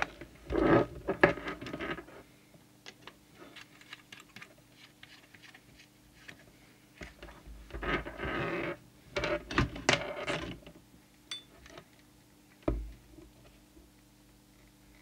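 Handling noise on a workbench: clicks, knocks and rubbing as a CB radio set and its leads are moved about, in two bunches, about a second in and again from about eight to ten seconds, with a single knock near the end. A faint steady hum lies underneath.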